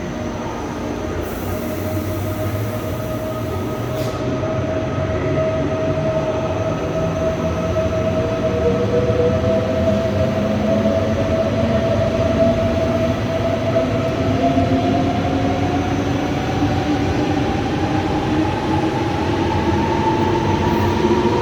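Intercity Express (ICE) electric train pulling away from a station platform, its traction motor whine slowly rising in pitch and getting louder as it accelerates.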